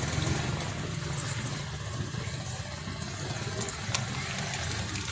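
A motor vehicle engine running close by, a steady low hum that slowly fades toward the end. A short click comes about four seconds in.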